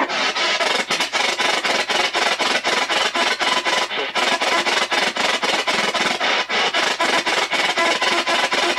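P-SB7 spirit box sweeping the AM band: a continuous choppy hash of static and clipped radio fragments, cut off several times a second as the radio jumps from station to station.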